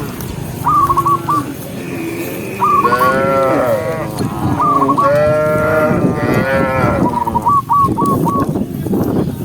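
Cow mooing, several drawn-out moos one after another. A short high warbling call recurs about every two seconds alongside them.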